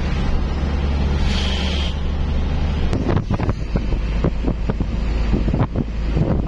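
A truck running at road speed, heard from inside the cab: a steady low engine drone with road noise. About three seconds in, wind starts buffeting the microphone in a run of irregular gusty thumps.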